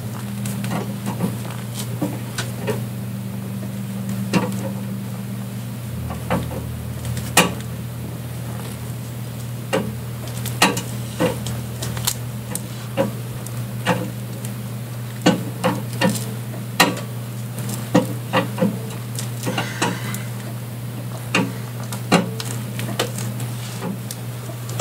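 Car's scissor jack being cranked up by hand with its rod handle, the metal handle and jack clicking and knocking at irregular intervals as the car rises, over a steady low hum.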